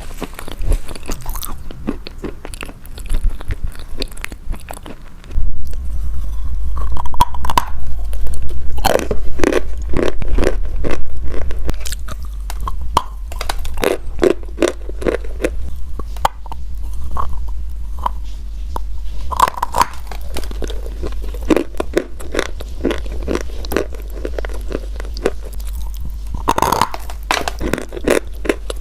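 Close-up biting and chewing of something crunchy, with many sharp crunches. A steady low hum comes in about five seconds in.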